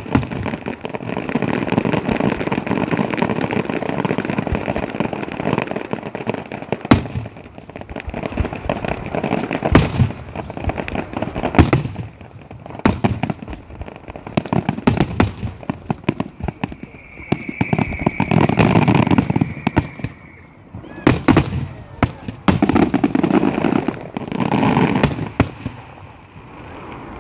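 Aerial fireworks going off: a dense run of crackling and popping with sharp single bangs scattered throughout. A steady high whistle lasts a few seconds past the middle.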